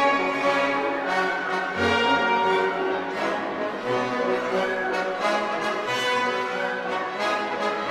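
Orchestral background music with brass, French horn prominent, over strings.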